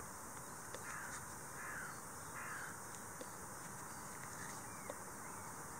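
Crows cawing faintly in the distance: three caws about a second apart, then a couple of fainter ones near the end, over a steady background hiss.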